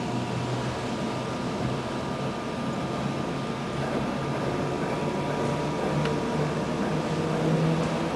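Inside an EN57 electric multiple unit under way: a steady running rumble with a low hum that rises slightly in pitch and grows a little louder toward the end.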